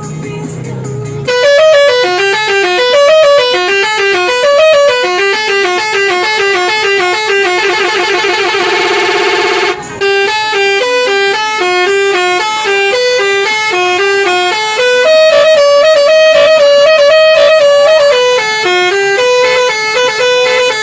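Bus telolet musical horn of the Basuri type, playing loud tunes of short stepped notes. Partway through it breaks into a fast rising warble, stops briefly, then plays another tune.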